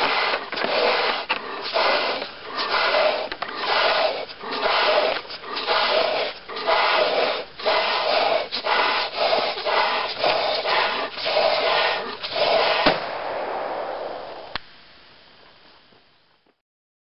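Latex balloons being blown up by mouth, with rapid repeated blows, as two people inflate 12-inch balloons toward bursting. About thirteen seconds in, a balloon bursts with a sharp bang, followed by a second or so of steady rushing noise and a faint click.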